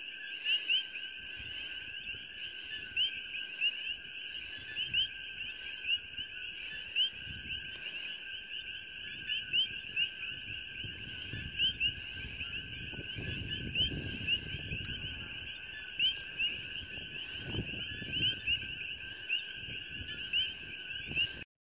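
Night chorus of coqui frogs: a dense, steady mass of two-note 'co-kee' calls, each rising in pitch, with nearer frogs standing out louder every second or so.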